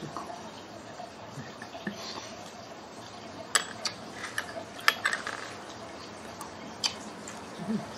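Eating utensils clinking against ceramic bowls and a small sauce dish at a meal: a handful of short, sharp clinks, the loudest about three and a half and five seconds in.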